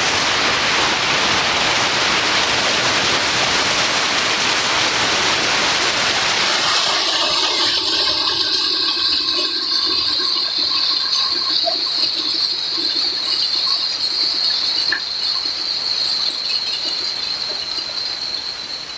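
Steady rushing of running water. About seven seconds in it changes from a full, even rush to a thinner hiss.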